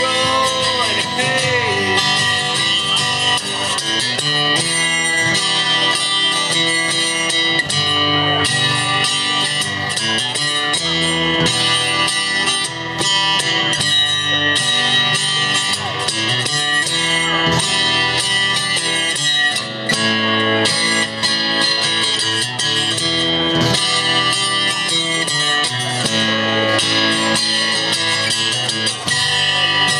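Two acoustic guitars playing together in an instrumental passage, chords under a picked lead line that bends notes about a second in.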